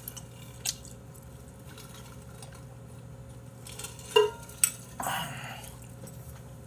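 A stainless steel drink tumbler handled with a few light clicks, then a sip and swallow from its spout about four seconds in.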